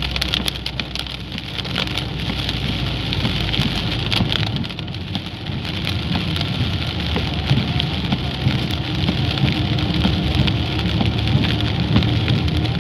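Heavy rain pelting a car's roof and windshield, heard from inside the moving car as a dense patter of drops over a low rumble from the car on the flooded road.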